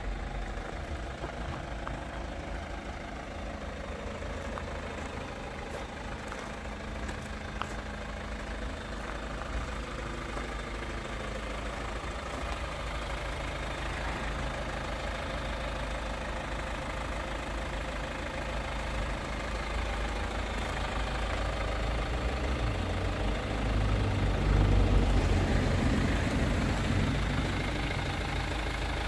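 2014 Hyundai Santa Fe's 2.0-litre turbo diesel engine idling steadily, growing louder toward the end.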